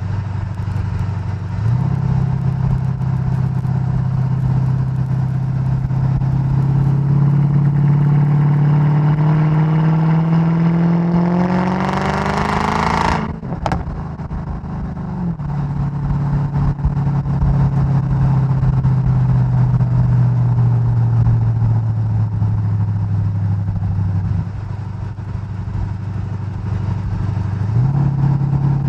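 Mercedes-Benz E55 AMG's supercharged 5.4-litre V8, tuned to 580 hp, heard at the exhaust while driving. The engine pulls with a steadily rising pitch, revs up quickly about twelve seconds in and cuts off sharply, with a few sharp exhaust pops just after. It then runs at a steady, slowly falling pitch, drops lower for a few seconds, and picks up again near the end.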